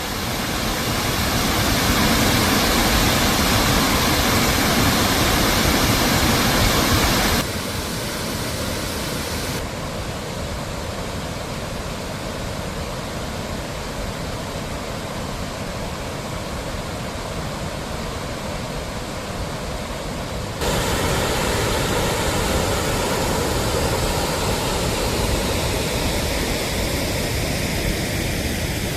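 Gira Waterfall in full monsoon flood: a steady rush of heavy falling water. The sound changes abruptly three times, dropping about seven seconds in and again a couple of seconds later, then growing louder again about twenty seconds in.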